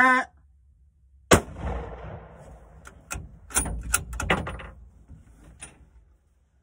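A single deer-rifle shot about a second in, with a tail that dies away over about a second, followed by a run of sharp clicks and knocks over the next few seconds. It opens with a short vocal call.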